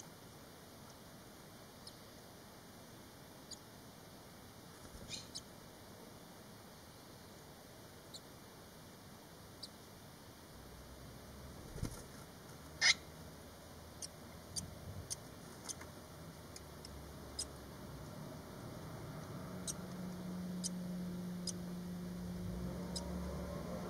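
Faint, scattered high squeaks and peeps from five-day-old barn swallow nestlings in the nest, with one louder chirp about halfway through. A low steady hum comes in about halfway and grows toward the end.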